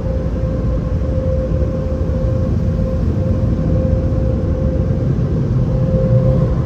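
Automatic car wash air-dryer blowers running: a loud, steady rush of air with one constant tone through it.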